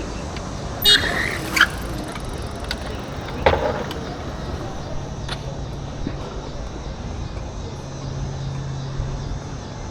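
City street traffic noise, with a few short sharp sounds about a second in and again after three seconds, and a steady low hum in the second half.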